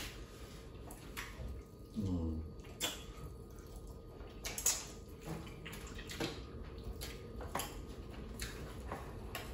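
Close-up wet eating sounds from people eating pounded yam and soup by hand: scattered chewing, lip smacks and sticky clicks, with a brief murmured vocal sound about two seconds in.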